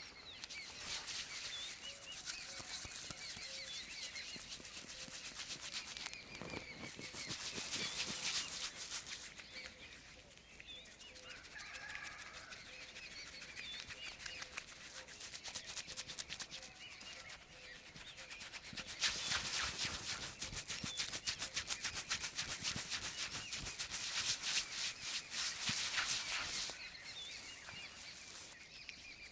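A barber's hands rubbing and scrubbing briskly over hair and scalp in a head massage, fast rustling strokes that ease off for a few seconds in the middle and are strongest near the end.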